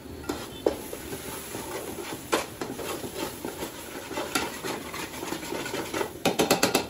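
A long metal spoon stirring spices into a thick curry paste in a metal pot, scraping and clinking against the pot. A quick run of sharp clicks comes near the end.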